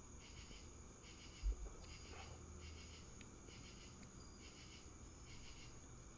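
Faint, steady chirping of crickets, about two chirps a second, with one soft low thump about a second and a half in.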